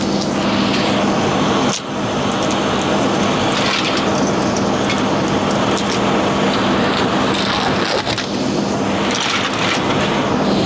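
Air handler blower running: a loud, steady rush of air with a low hum, air leaking out through a large gap in the indoor unit. A brief knock about two seconds in.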